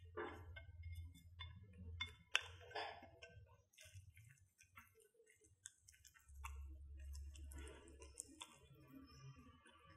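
Light clicks and taps of a silicone spatula spreading noodles around a nonstick frying pan, with one sharper clink about two seconds in, over a low hum.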